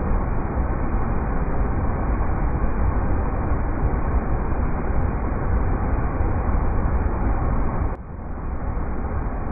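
River rapids rushing in a steady, dense roar of water, heavy in the low end. The level drops briefly about eight seconds in, then picks up again.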